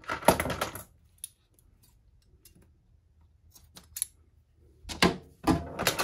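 Hands handling a coil of shock cord on a cutting mat while a length is cut from it: a burst of clattering knocks and rustles at the start, a few light ticks in the middle, and another louder burst about five seconds in.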